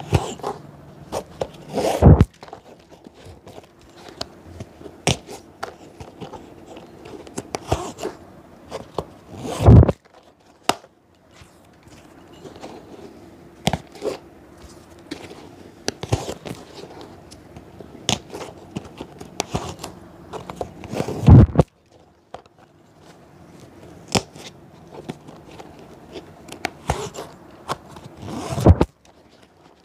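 Cobbler working on a shoe by hand: irregular scraping, rubbing and light clicks of tools on leather and sole, with four louder knocks spread through the stretch.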